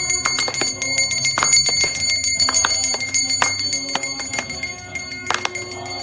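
A small brass hand bell rung continuously, its high ringing held throughout, together with people clapping their hands in quick, uneven claps. The sound eases off slightly near the end.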